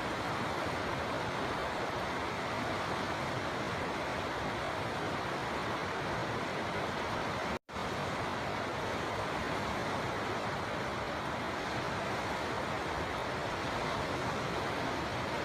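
River water flowing in a steady, even rush. A split-second gap of silence falls about halfway through.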